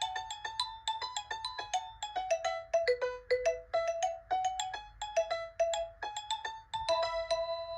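Nokia 3109c mobile phone ringtone playing: a quick melody of short, decaying notes, about five a second, ending on a held note near the end.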